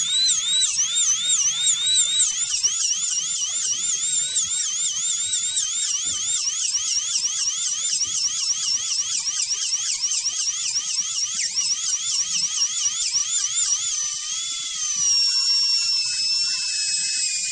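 A piercing, high-pitched warbling electronic tone, its pitch dipping and rising several times a second like an alarm. Near the end the warble slows and settles into a steadier tone that slides slightly down.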